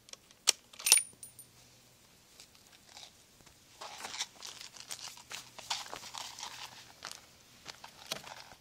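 Two sharp clicks about a second in, the second with a brief high metallic ring, then footsteps crunching and rustling through dry leaves and grass as a person gets up and walks off.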